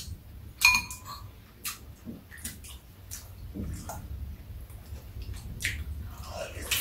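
Eating at the table: chopsticks and a fork clicking against ceramic bowls, with one ringing clink of utensil on dish about a second in, and wet slurping mouth sounds in between.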